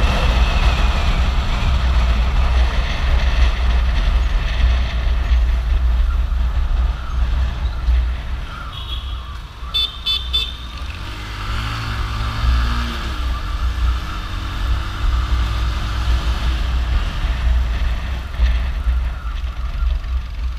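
Motorcycle riding through city traffic: steady wind rumble on the microphone over engine and road noise. About ten seconds in, a vehicle horn beeps several times in quick succession.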